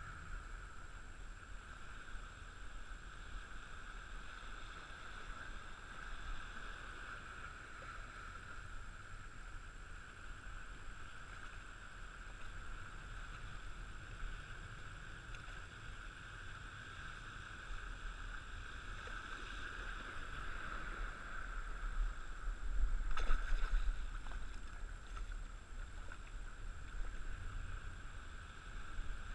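Steady wash of open water and wind, muffled through a head-mounted action camera's housing, with a louder burst of noise about three-quarters of the way through.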